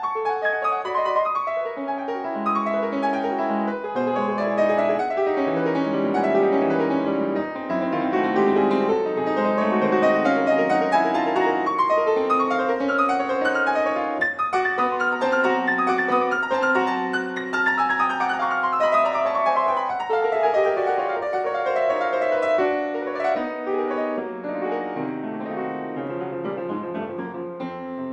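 Solo piano playing a fast, dense classical étude, its notes rippling in quick figures. About two thirds of the way in, a long run of rapid notes descends.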